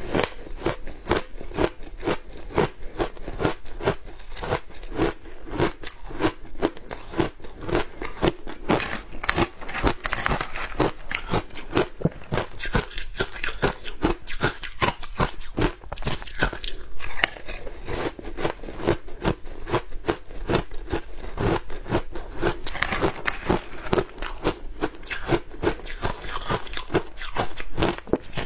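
Shaved ice dusted with matcha and milk powder crunching as it is bitten and chewed, a steady run of many crunches a second.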